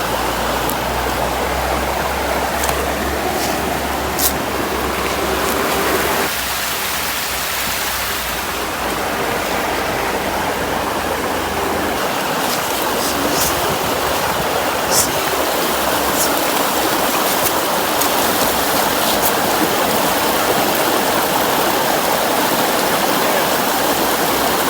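River water rushing steadily, running fast and high, a sign of rain upstream during the week. A few sharp clicks are scattered through it.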